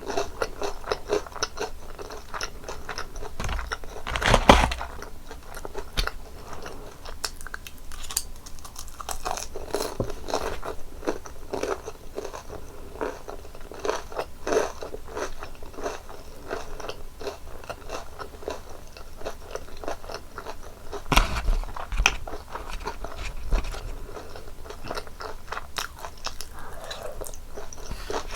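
Close-miked crunching and chewing of crispy fried breaded pork cutlet with a cheese filling: a run of crackly chews, with louder crunchy bites about four seconds in and again about twenty-one seconds in.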